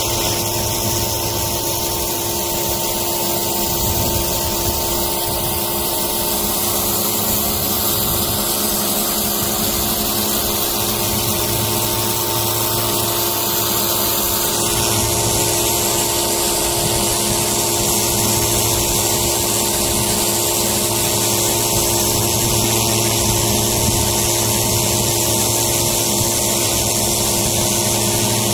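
Pressure washer running steadily: a motor hum under the constant hiss of the high-pressure water spray.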